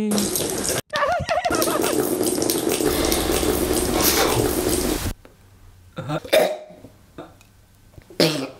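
Tap water running hard into a sink or container, cutting off suddenly about five seconds in; a few short, quieter sounds follow.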